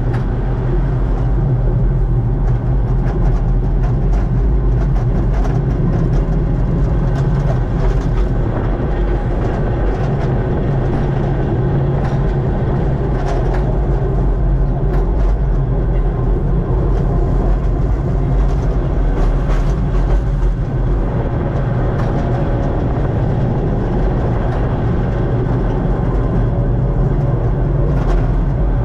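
Kurobe Gorge Railway trolley train's electric locomotive running along narrow-gauge track, heard from the driver's cab: a steady low rumble of motors and wheels, with scattered light clicks from the wheels on the rails.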